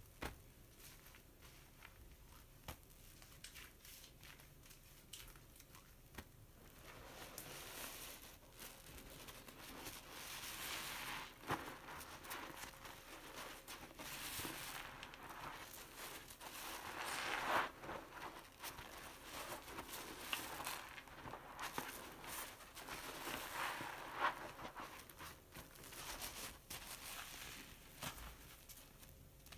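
A long foam sponge loaded with dish-soap lather being squeezed by hand: wet squelching and the fizzing crackle of foam bubbles. Quiet with a few small clicks at first, it grows louder about seven seconds in, swelling and easing with each squeeze, and settles down near the end.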